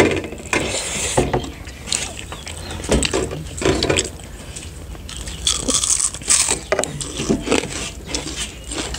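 People eating with their hands: irregular chewing and mouth sounds, mixed with fingers scraping and mixing food on metal plates.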